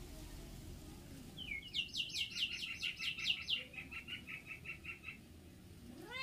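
A bird calling: a fast run of whistled notes, each falling in pitch, about six a second, that ends in shorter, steadier notes after about three and a half seconds. Right at the end a cat starts to meow.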